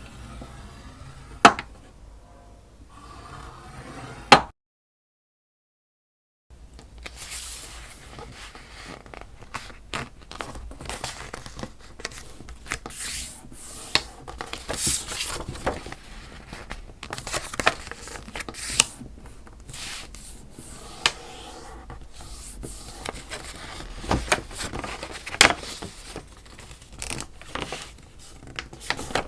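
Paper being handled while an envelope is made: rustling and scraping of paper, with many sharp crisp snaps and taps. It drops to complete silence for about two seconds, around four and a half seconds in.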